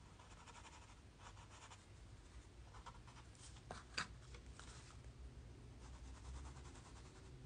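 Faint scratching of pencil strokes on a paper tile as shading is added, with a light tap about four seconds in.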